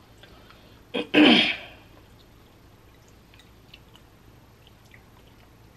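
A person's single sudden, loud vocal outburst about a second in, short and falling in pitch, a reaction to the burn of a hot pickle; faint small ticks follow.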